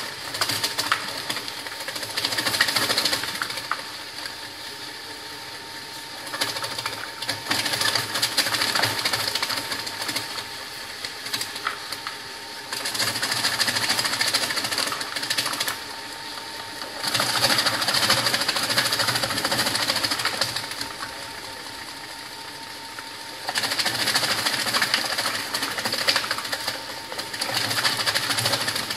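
Ginger slicing machine running and slicing fresh ginger fed into its hopper. Several stretches of loud, rapid clattering cutting alternate with quieter stretches where only the machine's steady hum is left.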